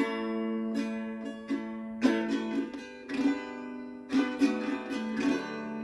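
Instrumental music: chords strummed on a plucked string instrument of the ukulele or guitar kind, struck about once a second and ringing on over a held low note, with no singing.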